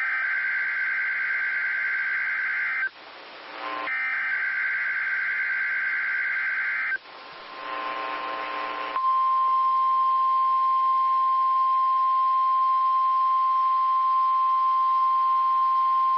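Emergency Alert System test on NOAA Weather Radio: two raspy SAME header data bursts of about three seconds each, with radio hiss in the gap between them. About nine seconds in, the steady single-pitch 1050 Hz warning alarm tone starts and holds.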